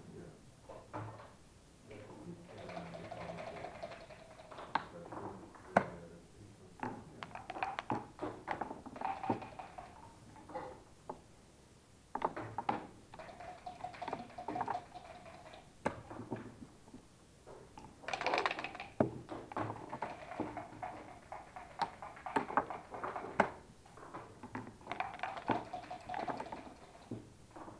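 Backgammon being played over the board: short bouts of rattling, heard as dice shaken in cups, alternating with sharp clicks as checkers are set down, turn after turn.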